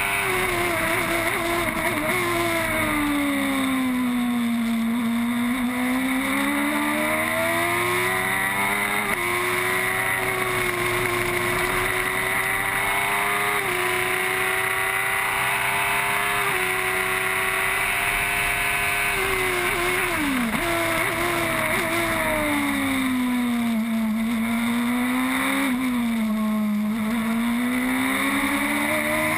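Onboard sound of a Formula 1000 race car's high-revving 1000 cc motorcycle engine at speed. Its pitch falls under braking into corners and rises again on the throttle, with a sharp drop about two-thirds of the way through.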